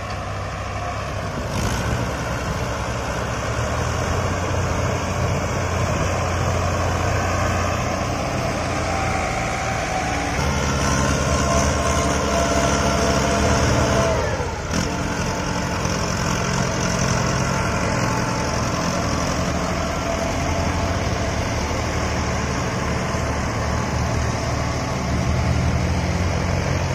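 Diesel engines of farm tractors running steadily as they pull trailers heavily loaded with sugarcane, with a brief drop about halfway through.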